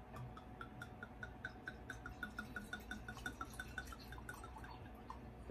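Red wine glugging out of a bottle into a glass: a faint, quick, even run of soft gurgles, about seven a second, that stops about a second before the end.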